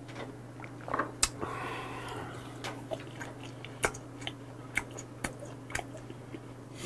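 A man chewing a mouthful of food close to the microphone, with scattered wet clicks of the mouth and a breathy sound about a second and a half in. A steady low hum runs underneath.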